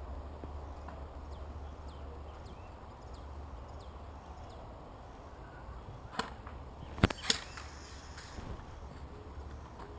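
Three sharp cracks of airsoft gunfire, one about six seconds in and two close together just after seven seconds, over a steady low wind rumble on the microphone.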